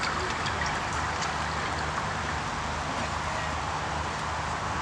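Steady rush of a shallow river's water running and rippling over its bed.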